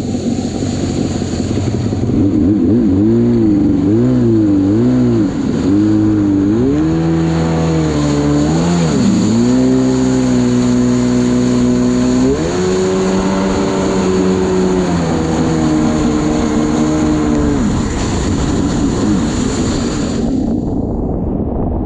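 Kawasaki 650SX stand-up jet ski's two-stroke twin engine running on the water. Its revs rise and fall with the throttle, wavering quickly at first, then holding steady for a few seconds at a time with steps up and down.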